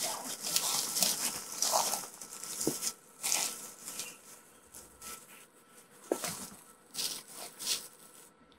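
Irregular rustling and scuffing noises in uneven bursts, with short pauses between them.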